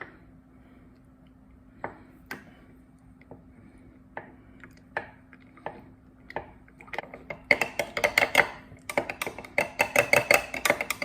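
A utensil stirring thick tahini in its jar, clicking and scraping against the jar as the separated oil is worked back in. At first there are scattered taps, then about seven seconds in the stirring turns quick and steady, with many clicks a second.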